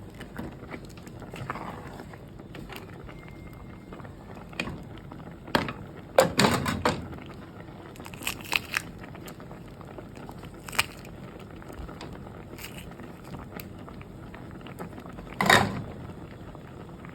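Scattered knocks and clatters over a steady low background hiss. There is a burst of several clatters about six seconds in, a few lighter taps around eight seconds, a single knock near eleven seconds, and a loud clatter near the end.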